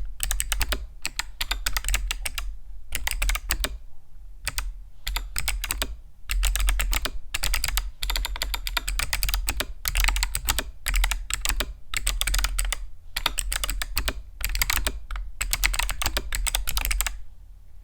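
Fast typing on a Xinmeng X75 mechanical keyboard with Kailh Box Summer clicky switches: dense runs of crisp clicks in bursts with short pauses between them, stopping shortly before the end.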